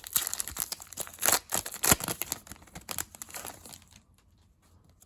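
Foil wrapper of an Upper Deck hockey card pack crinkling and tearing as it is ripped open, a dense crackle that stops about four seconds in.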